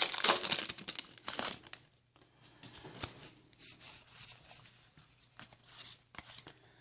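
Foil booster pack wrapper being torn open and crinkled, loudest for about the first two seconds, then only quiet scattered rustling and light clicks.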